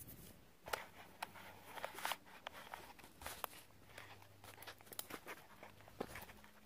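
Footsteps crunching over rough ground, with scattered clicks and rustles over a faint steady low hum.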